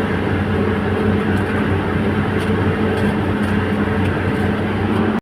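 Excavator's diesel engine running steadily, a constant drone with faint light clicks over it.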